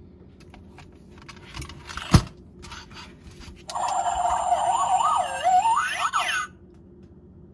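Dinosaur Train talking toy's speaker playing an electronic sound effect for about three seconds, its pitch wavering up and down and then sweeping up near the end. Before it come light plastic handling clicks and one sharp click about two seconds in.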